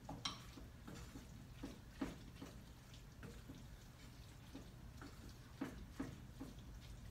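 Wooden spoon stirring ground beef and cauliflower rice in a frying pan as cheese melts into the sauce. It knocks and scrapes against the pan in soft, irregular taps, about ten of them, the clearest about two seconds in.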